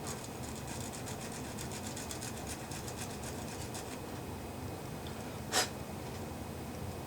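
Small hand file rasping rapidly over a part from a quartz clock movement, in quick short strokes, about five or six a second, for roughly the first four seconds. A single short, sharp click stands out about a second and a half after the filing stops.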